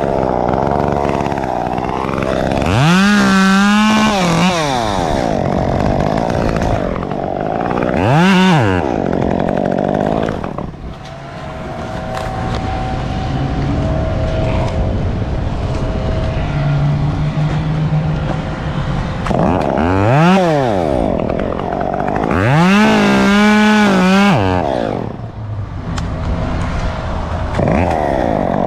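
Chainsaw engine idling, revved up four times and let back down to idle; two of the revs are short and two are held for a second or two.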